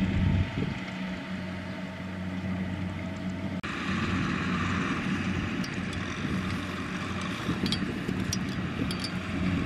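Kubota M6040SU tractor's four-cylinder diesel engine running steadily under load as it tows a trailer of rice sacks through mud. The sound changes abruptly about three and a half seconds in.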